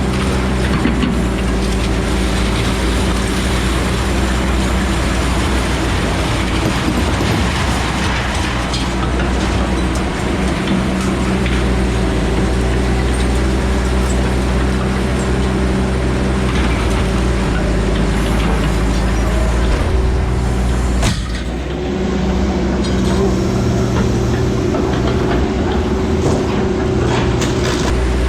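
A truck's engine running steadily, with a low drone and a broad hiss of road noise, as from a moving vehicle. The sound drops briefly about three quarters of the way through.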